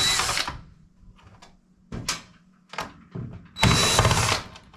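DeWalt cordless drill with a 1/4 inch driver bit backing out the two screws that hold a dryer timer. There are two short runs, one at the start and one about three and a half seconds in, with small clicks between them.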